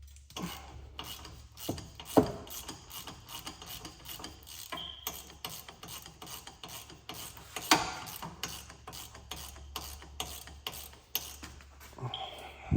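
Harbor Freight Icon G2 ratchet clicking in an even run as it is swung back and forth on a fastener, with two louder metallic knocks, one about two seconds in and one past the middle.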